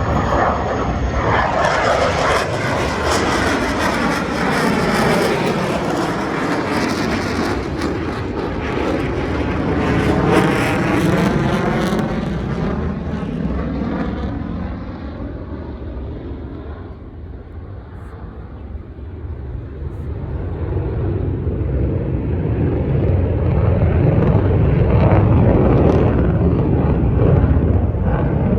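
Jet noise from an EA-18G Growler's twin turbofan engines as the jet flies past, loud with a sweeping, phasing quality in the first half. It eases off in the middle, then builds again toward the end as the jet comes back around.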